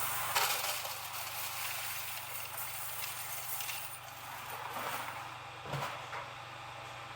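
Electric coin counting machine humming steadily as quarters are loaded and counted, with a few clinks of coins.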